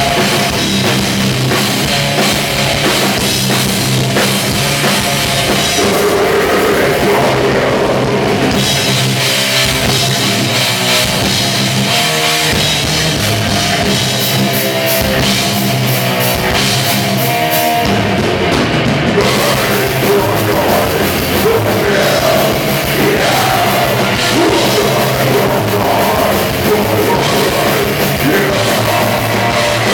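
Live metal band playing loud, with distorted guitars and a drum kit. The low end thins out for a stretch in the middle before the full band comes back in.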